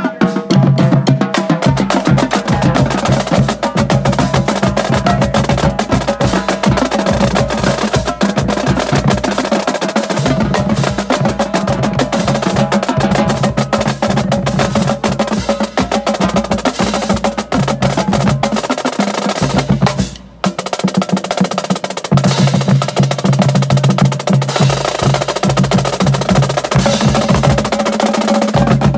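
Marching drumline playing a cadence: fast, dense strokes on snare and tenor drums over pitched bass drums. The playing drops out briefly about twenty seconds in, then comes back in.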